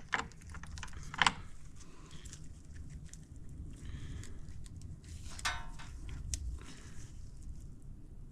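Metal engine parts and hand tools handled during motorcycle engine reassembly: scattered clicks and knocks, with a sharp knock about a second in and a short rattle around five and a half seconds in.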